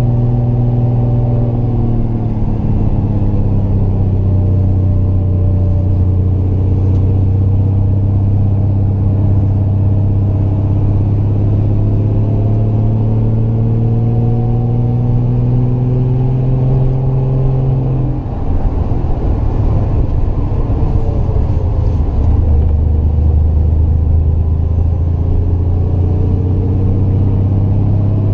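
Triumph GT6 Mk2's two-litre straight-six engine pulling uphill, its pitch climbing slowly for most of the stretch. About eighteen seconds in it eases off with a brief dip in loudness, then runs on at a lower pitch.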